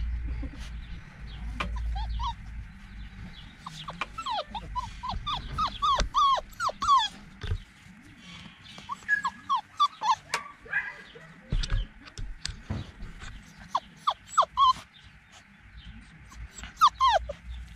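American Collie puppies whimpering and squeaking: several runs of short, high, falling whines, with a low rumble near the start.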